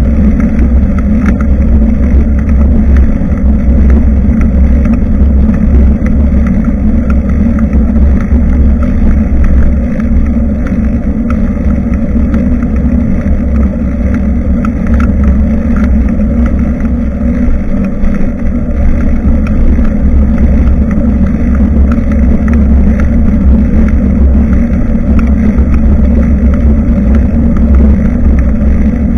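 Steady, loud low rumble of wind buffeting and riding vibration on a bicycle-mounted action camera's microphone, with faint scattered ticks above it.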